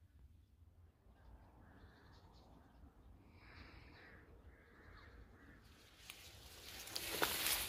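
Crows cawing several times, then a rustling of leaves and twigs that swells near the end to become the loudest sound.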